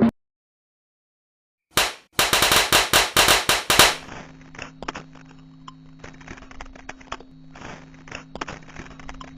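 Silence, then about two seconds in a rapid run of sharp cracks like a burst of gunfire, roughly six a second, followed by faint scattered clicks over a low steady hum.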